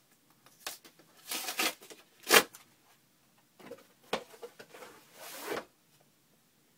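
A cardboard shipping box being opened and its contents pulled out: a series of short tearing, rustling and scraping noises, the loudest a sharp rip about two and a half seconds in and a longer rustle near the end.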